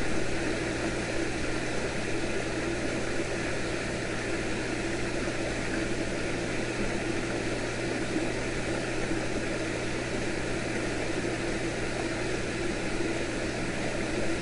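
Steady rushing of creek water spilling over newly built log V-weirs into the pools below, with a faint low hum underneath.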